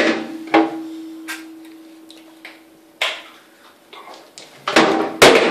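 Clicks and knocks of a child handling a chocolate surprise egg shell and its plastic toy capsule on a tabletop, with a louder clatter of knocks near the end, over a steady low hum.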